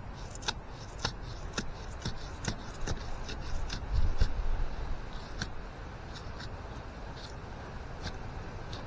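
Machete blade digging and chopping into soil and tree roots: irregular sharp clicks and scrapes, a few a second, with a heavier thud about four seconds in.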